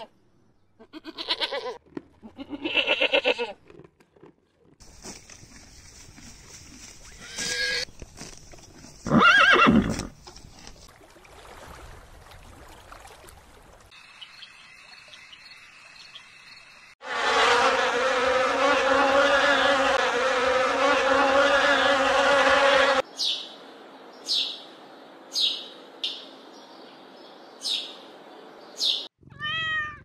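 A run of separate animal recordings. Goats bleat in the first few seconds. Later, frogs call in a loud, dense chorus for about six seconds, followed by single sharp frog calls about a second apart, and a short cat meow comes right at the end.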